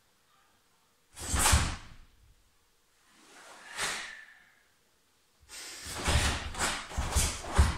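Karate gi fabric snapping and swishing with the thud of bare feet on a wooden floor as a kata's techniques are thrown: one hard snap about a second in, a slower swish near four seconds, then a rapid run of snaps and thuds from about five and a half seconds.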